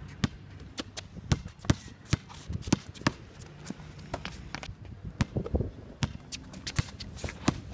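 Basketball being dribbled on an outdoor hard court, sharp irregular bounces about two a second, with players' footsteps and shoe scuffs on the surface.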